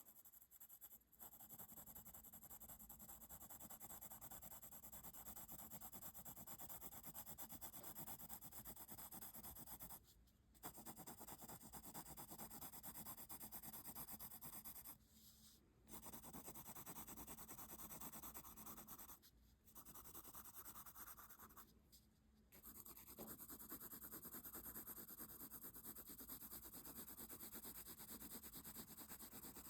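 Pencil scratching on paper in long, continuous shading strokes, faint and close, with four short breaks where the pencil lifts off the paper.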